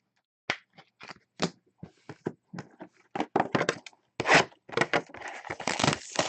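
Trading cards and their packaging being handled and opened: irregular clicks and snaps that thicken into a denser, near-continuous crinkling from about halfway through.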